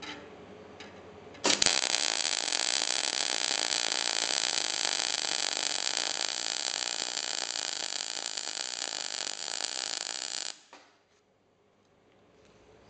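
MIG/MAG welding arc burning on steel plate with wire feed speed and voltage correctly matched, giving an even, regular crackle. It starts abruptly about a second and a half in, runs steadily for about nine seconds, then stops suddenly.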